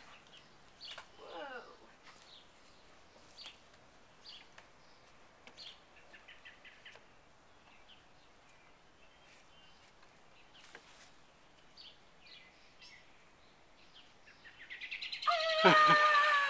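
Birds chirping here and there, faint and sporadic. Near the end a woman lets out a loud, drawn-out shout that falls slightly in pitch.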